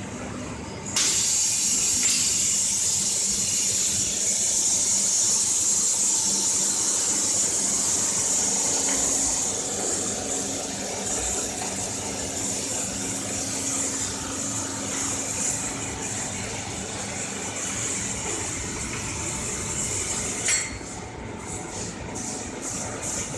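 Loud steady hiss of compressed air at a commutator moulding press, starting suddenly about a second in and cutting off with a click near the end. A lower factory machine hum runs under it.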